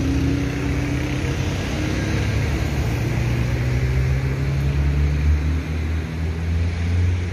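Motor traffic: a vehicle engine running, a steady low hum with road noise, heavier in the second half.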